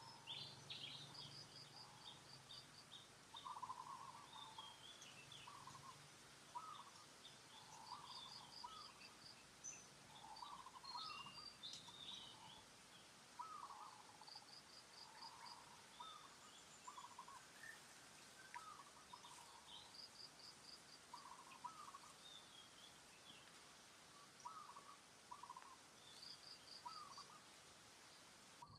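Faint outdoor birdsong from several birds. A short run of five or six quick high notes repeats every six or seven seconds, with shorter, lower calls coming every second or two in between, over a faint steady hiss.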